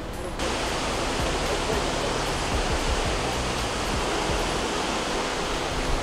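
Steady, even rush of Jeongbang Waterfall's falling water, beginning abruptly a moment in.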